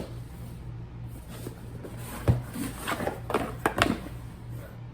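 Cardboard snack subscription box being opened and handled: a few short knocks and scrapes about two to four seconds in, over a steady low hum.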